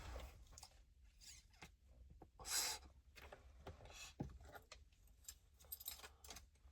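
Quiet handling noises in a vehicle cab: scattered soft clicks and rustles, with one brief louder rustle about two and a half seconds in and a sharp click about four seconds in.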